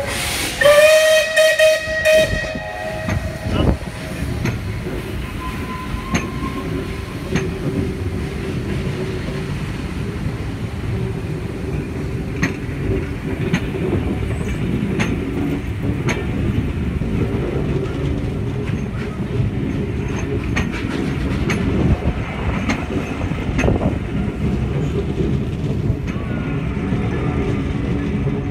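Steam locomotive whistle blowing for about two seconds near the start, followed by the steady rolling rumble of passenger coaches passing, with scattered wheel clicks over the rail joints.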